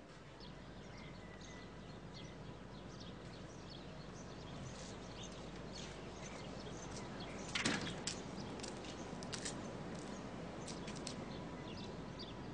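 Birds chirping in short, scattered high calls over a steady background hiss, with one louder brief rustling knock about eight seconds in.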